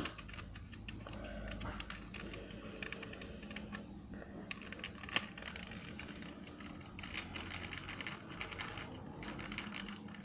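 Fast scratchy rubbing and scraping on the plastic faces of a 2×2 Rubik's Cube as sticky sticker residue is cleaned off, coming in runs of quick ticks with short pauses, and one sharper click about five seconds in.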